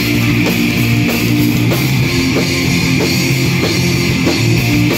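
Live rock band playing loud: distorted electric guitars, bass guitar and a drum kit keeping a steady beat of about three hits a second.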